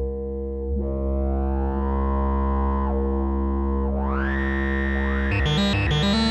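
Behringer TD-3-MO analogue bass synthesizer holding a low, sustained note while its filter sweeps up and down several times. About five seconds in, a fast, choppy arpeggiated pattern starts.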